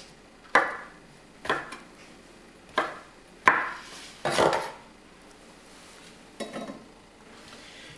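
Chef's knife chopping shiitake mushrooms on a wooden cutting board: about six separate sharp knocks, irregularly spaced a second or so apart.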